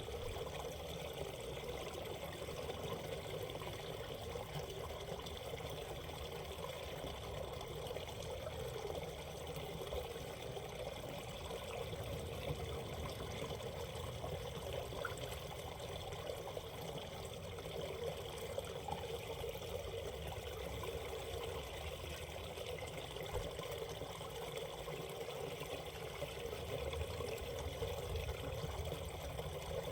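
Water of a shallow valley stream running over rocks, a steady even rush and trickle.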